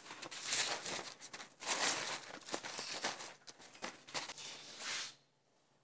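Paper towels rustling and crinkling as marinated chicken pieces are wrapped and pressed dry on a plate, in a run of scratchy bursts that stops about five seconds in.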